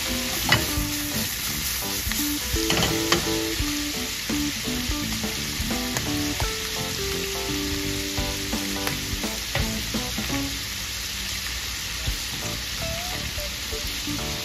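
Whole prawns frying in butter in a stainless steel pan with a steady sizzle. Metal tongs click against the pan a few times in the first three seconds as the prawns are turned.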